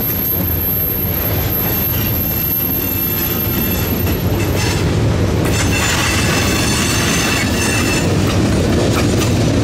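Freight train's open hopper cars rolling past, a steady rumble with wheels clattering over the rail. About halfway through, high steady wheel squeal joins in.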